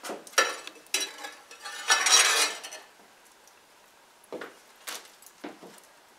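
Hot coals and embers being scraped out of a wood-fired brick bake oven with a metal tool, clearing the preheated oven for baking: sharp scrapes and clinks across the brick floor, a longer scrape about two seconds in, then a few lighter knocks.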